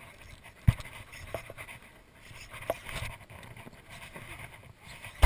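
Handling noise as a baitcasting reel and lure are worked by hand in a boat: a few scattered sharp knocks and clicks, the loudest about a second in and another near the end, over a faint steady hiss of wind and water.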